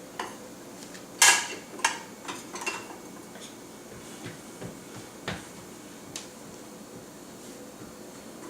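Dishes and kitchenware clinking and knocking as a dishwasher is unloaded: a handful of separate sharp clinks, the loudest just over a second in and a quick run of them soon after, then a few more spaced out.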